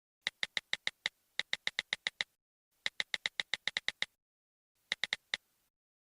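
Electronic music: a single synthesizer note repeated in short, evenly spaced pulses, about six a second, in bursts of several notes with brief pauses between them. The pulses stop shortly before the end and silence follows.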